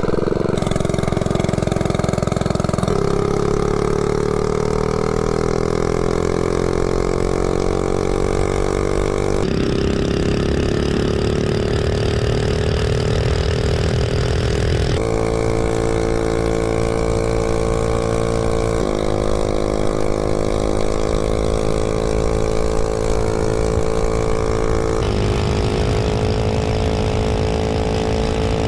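98cc Coleman 3hp single-cylinder mini bike engine, governor removed and fitted with a header pipe, running hard on a top-speed run. Its pitch climbs as the bike gathers speed and then holds high and steady. The tone jumps abruptly several times.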